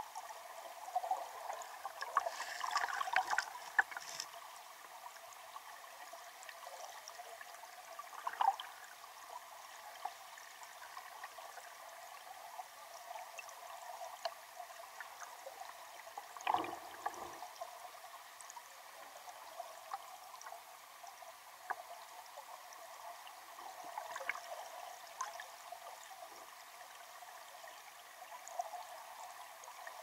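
River water rushing over rocks, heard underwater: a steady churning hiss of current and bubbles with scattered pops and gurgles. It surges louder a few seconds in, and there is one deep gurgle near the middle.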